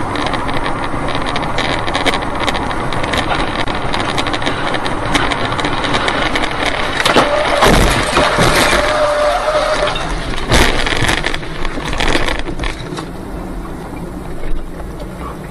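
Steady road and wind noise inside a moving car, broken about seven to eight seconds in by a cluster of heavy crashes and bangs as large wreckage flies across the highway ahead, with another loud bang a few seconds later.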